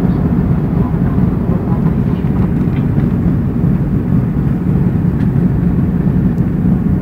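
Airbus A330 jet engines running with a steady low rumble during takeoff and climb-out.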